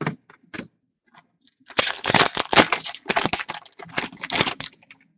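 Hockey card pack wrapper being handled and torn open: a few sharp clicks, then about three seconds of dense crinkling and tearing that starts about two seconds in and stops near the end.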